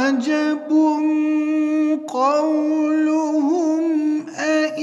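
A male reciter's voice chanting the Quran in the melodic mujawwad style, holding long drawn-out notes with wavering ornaments. The voice breaks off briefly about two seconds in and again near the end.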